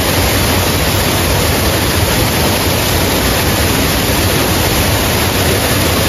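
Water from a small waterfall and stream rushing and splashing over rocks, a steady rush that does not change.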